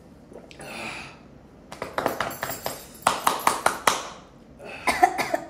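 A woman claps her hands rapidly, about five or six claps a second, in two runs, with wordless voice sounds between the claps as she reacts to the burn of a strong tequila shot. A breathy exhale comes first.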